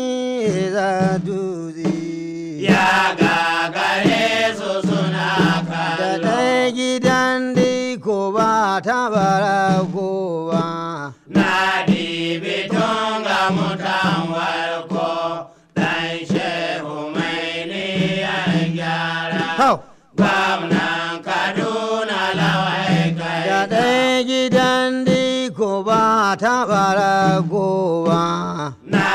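Hausa praise song: a singer chanting in long melodic phrases over a steady low accompaniment.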